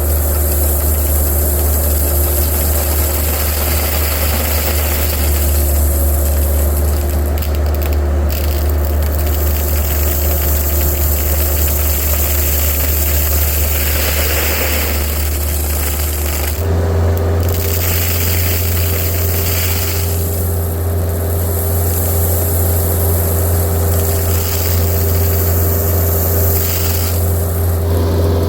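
Diesel engine of a piece of heavy excavation equipment running steadily. About two-thirds of the way through, it steps up to a slightly higher engine speed and holds there.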